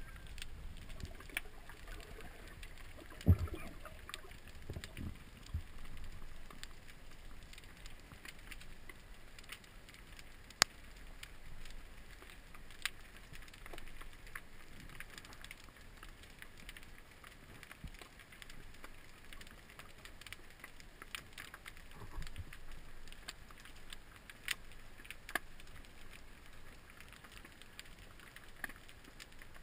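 Underwater sound through an action camera's waterproof housing: a low hiss of water with many scattered sharp clicks, and a few low knocks, the loudest about three seconds in.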